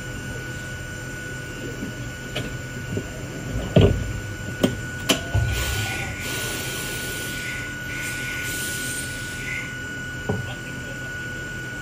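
Inside a Hakone Tozan Railway Moha 1 electric railcar: a steady high-pitched whine, with several sharp knocks and clunks, the loudest a little under four seconds in.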